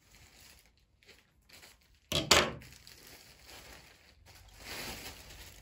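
A plastic shipping bag being cut open: a sudden loud rip about two seconds in, then plastic crinkling near the end.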